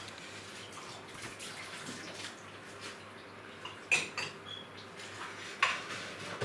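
Washing-up at a kitchen sink: water splashing and dishes and cutlery clinking. There are two louder clatters about four and five and a half seconds in.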